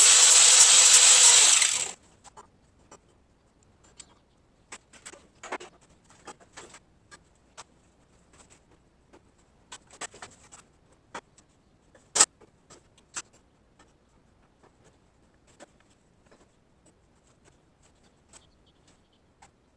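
A power tool cutting or grinding metal, loud and steady, stops abruptly about two seconds in. Then come scattered light clicks and knocks of metal parts and tools being handled, with one sharp knock about twelve seconds in.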